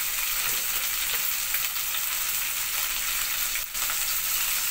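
Chicken pieces sizzling in hot oil in a pot: a steady frying hiss.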